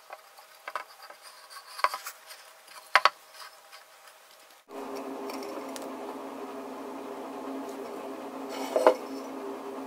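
Light clicks and taps as a hardened clay mask is turned over and handled on a tabletop. About halfway through a steady hum comes in, with one sharp knock near the end.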